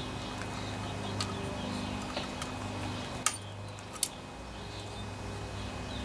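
Light ticks and two sharp metal clinks, a little over three and about four seconds in, as a fuel pump is worked loose from a small engine's crankcase with needle-nose pliers, over a steady low hum.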